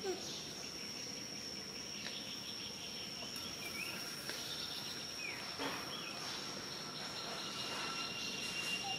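Steady high-pitched drone of insects, with a few short chirps and squeaks over it.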